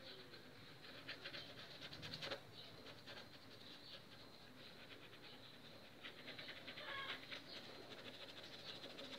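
Faint, scratchy rustle of a paintbrush scrubbing thick, clumpy paint onto paper, in two short spells.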